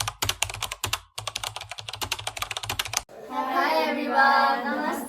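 Rapid keyboard-typing clicks for about three seconds, cutting off abruptly. A sung voice with music follows.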